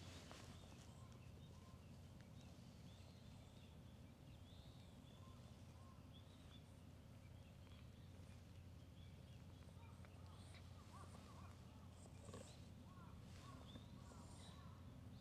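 Near silence: faint outdoor ambience, a low steady rumble with many small scattered bird chirps, busier in the second half.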